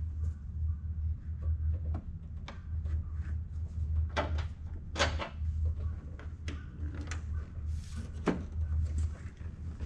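Scattered sharp plastic clicks and knocks as a car's front bumper cover is pressed and fitted into place, over a steady low hum; the sharpest knocks come about four, five and eight seconds in.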